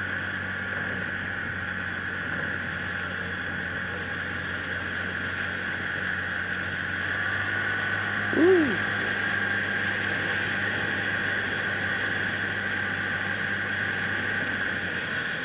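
Yamaha Kodiak ATV's engine running steadily while riding: a constant drone with a steady high whine over it. About eight seconds in, a short pitched sound rises and falls, briefly louder than the engine.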